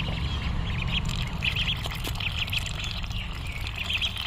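A flock of ducklings peeping: many short high calls overlapping, several a second, over a steady low rumble.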